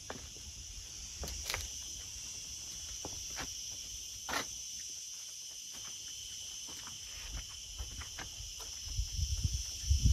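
Steady high insect chorus, with scattered light clicks and knocks through it. Low rumbling noise builds near the end.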